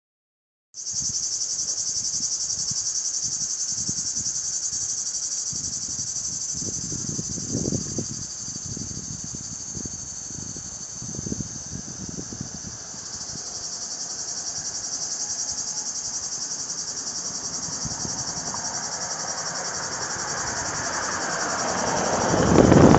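A dense chorus of cicadas buzzing in a steady, high, finely pulsing drone. Low rumbles come and go in the middle, and a broad rushing noise swells up near the end.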